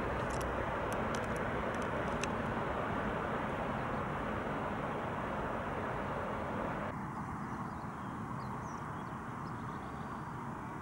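Steady outdoor background rush, with a few faint clicks in the first two seconds; it drops noticeably in level about seven seconds in.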